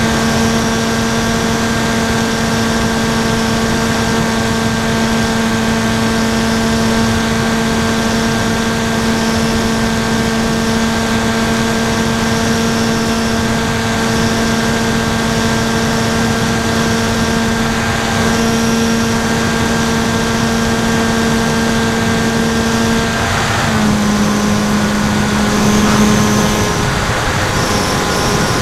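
NTM 2836 1200kv brushless motor spinning a 10x5 APC propeller on an FX-61 flying wing, heard from the onboard camera: a steady propeller drone at cruise throttle over airflow hiss. About 23 seconds in, the pitch steps down slightly as throttle is eased, with a short rush of wind, then holds steady.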